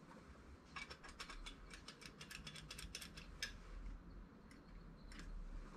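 A quick, irregular run of small metallic clicks from a small tool or metal part being worked in gloved hands, with a few more clicks near the end.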